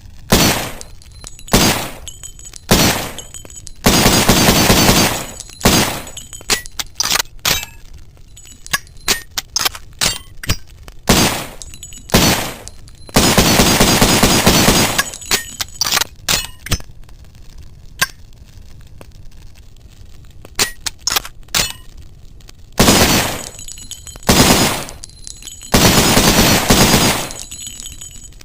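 Mauser C96 pistol firing: many sharp single reports and clicks, and four longer dense bursts of about one to two seconds each.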